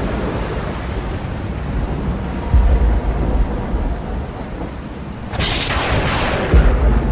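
Tropical storm weather: a steady rush of rain and wind, with heavy low rumbles about two and a half seconds in and again near the end, and a louder hissing surge a little after five seconds.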